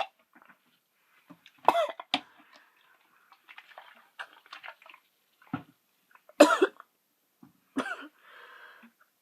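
A young woman coughing several times in separate bursts, the loudest about six and a half seconds in, as she forces down a spoonful of mustard that she finds disgusting.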